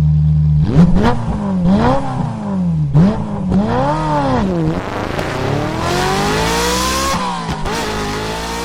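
Car engine revving: it jumps up and falls back twice, then climbs in one long pull with a rushing hiss near the top, drops a little and holds steady near the end.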